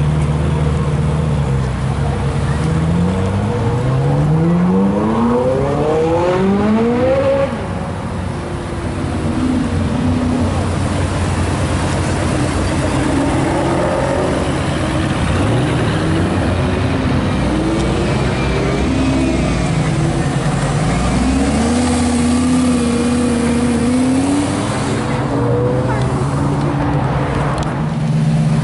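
Sports-car engines idling and pulling away. In the first seven seconds one engine revs up hard in several climbing sweeps before dropping off, and more revving and idling engines follow later.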